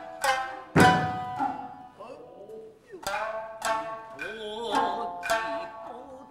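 Kiyomoto dance accompaniment: a shamisen plucked in spaced, ringing notes, one struck hard about a second in, with a singer's voice holding wavering, gliding notes in the second half.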